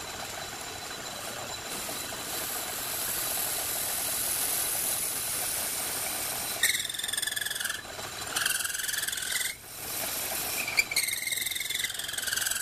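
Logan metal lathe running, spinning a beech dowel with a steady whirr. About halfway through, a 3/8 inch twist drill in the tailstock bores into the end of the dowel and squeals high as it cuts, in three bouts with short breaks between.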